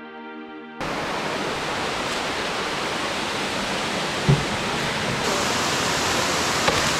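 Waterfall pouring into a rock pool: a steady, even rush of falling water that starts abruptly about a second in, with a brief thump about four seconds in.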